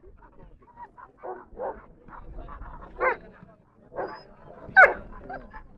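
Dog barking: a handful of short, separate barks at uneven intervals, the loudest near the end.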